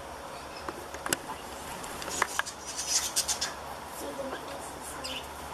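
Straw bedding rustling and crackling, a scatter of sharp clicks and scratches that thickens around the middle.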